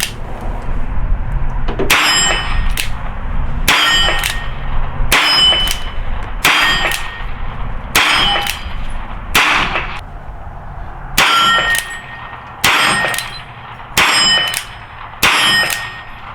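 Ruger .32 H&R revolver fired shot after shot, about one every one and a half seconds, each shot followed by a clear metallic ring like a steel target being hit.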